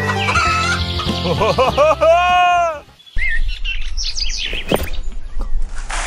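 Chickens clucking over background music, ending in a long, arching call that cuts off about three seconds in. Scattered chirping calls follow.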